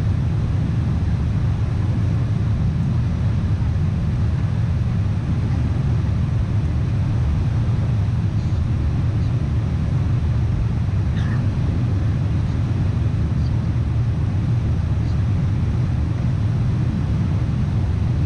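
Boeing 747 cabin noise during the climb after takeoff: a steady, low drone of engines and rushing air, heard from inside the cabin at a window seat.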